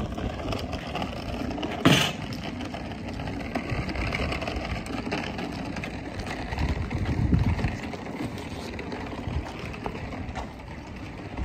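Outdoor background noise while walking, with uneven low rumbling and one sharp click about two seconds in.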